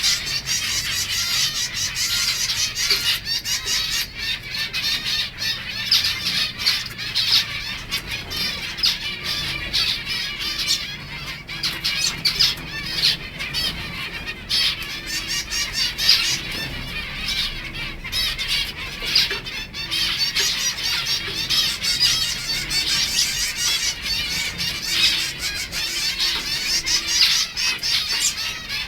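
A flock of zebra finches calling all at once, a dense, unbroken chatter of short high calls, with wings flapping.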